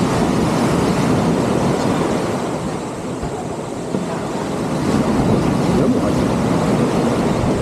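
Steady rushing outdoor ambience with no distinct events.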